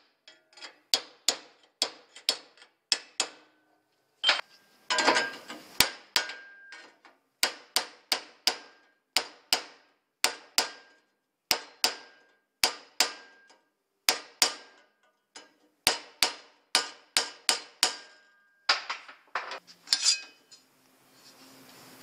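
Metal hammer striking sheet metal clamped in a bench vice: runs of sharp, ringing blows, about two to three a second, with a couple of quicker flurries, as the sheet is bent and shaped into a patch piece. The blows stop shortly before the end.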